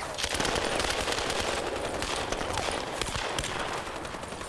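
Heavy machine-gun fire: many overlapping shots in rapid succession.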